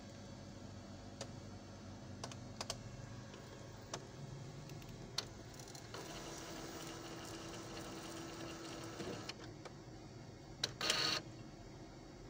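Epson T60 inkjet printer mechanism at work: scattered clicks, then a steady motor whirr for about three seconds from the middle, and a short louder rattle near the end.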